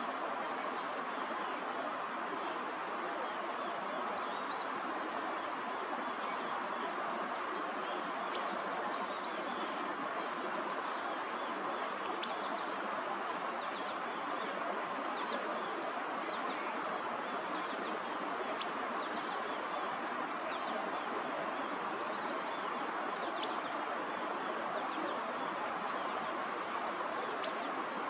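Willow flycatcher calling: short, high notes repeated irregularly every few seconds over a steady background rush.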